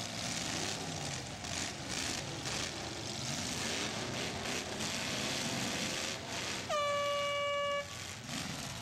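Demolition derby cars' engines running amid the arena's rumble and scattered knocks, then one loud air horn blast about a second long near the end, sagging slightly in pitch as it starts.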